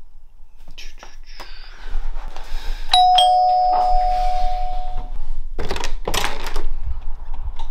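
Doorbell chime ringing a two-note ding-dong, a higher note then a lower one, fading out over about two seconds. A couple of seconds later a front door's lever handle and latch clack as the door is opened.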